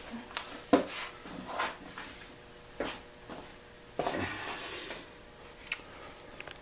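Scattered small clicks and taps, about one a second, of a disassembled lock cylinder and its pins being handled on a workbench.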